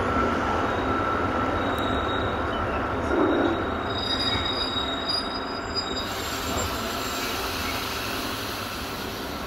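Passenger train rolling slowly along a station platform, heard from an open coach window: a steady low rumble from the running gear, with a thin high steady wheel squeal from about two seconds in to about six seconds in.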